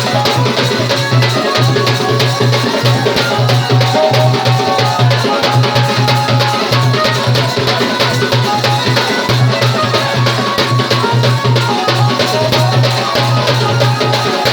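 Loud Saora folk dance music: fast, dense drumming and other percussion, with some held pitched notes above, going without a break.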